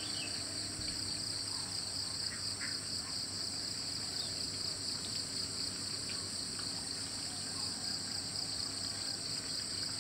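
Steady, high-pitched chorus of insects, an unbroken drone that neither rises nor fades.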